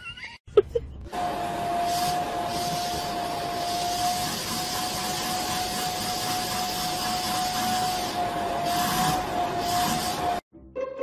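Vacuum cleaner running steadily, a single high whine over rushing air, its hose nozzle being drawn over a cat's fur. It cuts off abruptly near the end.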